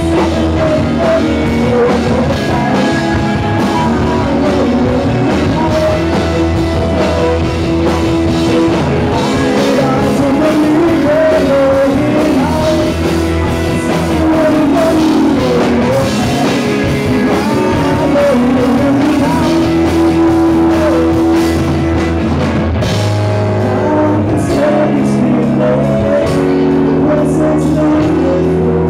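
Live rock band playing: a man singing over electric guitars, bass and drums. Near the end the bass shifts to long held notes and the drum hits stand out more.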